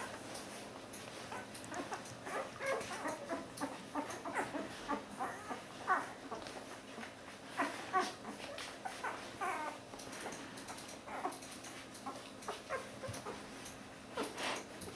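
One-week-old Border Collie puppies squeaking and whimpering as they nurse: many short, high little cries scattered irregularly, busiest in the first two-thirds.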